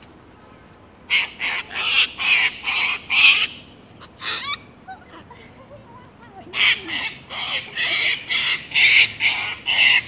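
Sulphur-crested cockatoos screeching: two bouts of rapid, harsh, raspy squawks, the first starting about a second in and the second about two-thirds of the way through, with a lone call between them.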